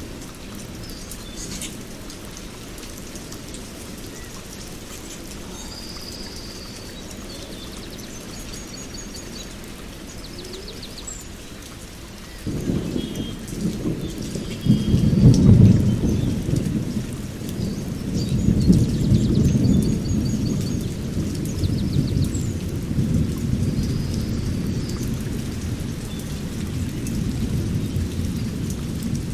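Steady rain with birds chirping now and then. About twelve seconds in, a long roll of thunder starts suddenly, is loudest a few seconds later, and keeps rumbling in waves.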